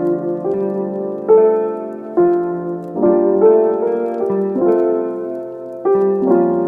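Background piano music: a slow melody of single struck notes over held chords, a new note about every half second to a second.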